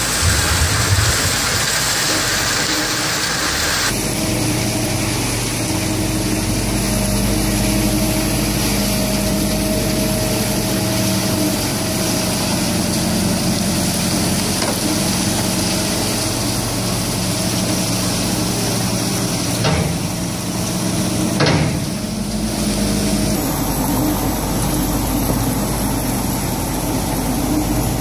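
Steady running of a mobile trommel screen and wheel loader, with wood chips tumbling in the turning drum and pouring off the conveyor. The sound changes abruptly about four seconds in and again near the end. There are two short knocks a little past two-thirds of the way through.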